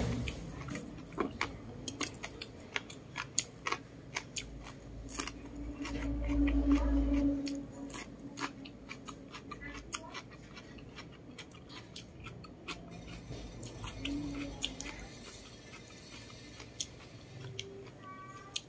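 Close-up chewing and mouth sounds of a person eating rice with braised fish, ribs and cucumber, full of sharp wet clicks and smacks. A low drone swells for about three seconds near the middle.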